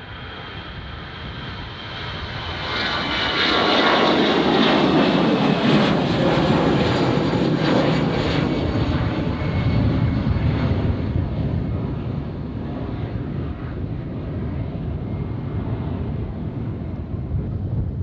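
An airliner climbing out after takeoff and passing by: its engines swell to a loud peak a few seconds in, their whine falling in pitch as the aircraft goes past, then settle into a lower rumble that slowly fades.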